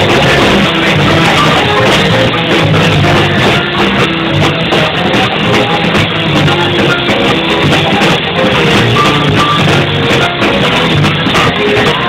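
Live band music: electric keyboard and electric guitar playing together, recorded loud and close.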